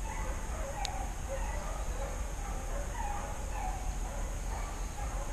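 A pack of hunting hounds baying in the distance, short faint cries every half second or so, the cry of hounds running a trail.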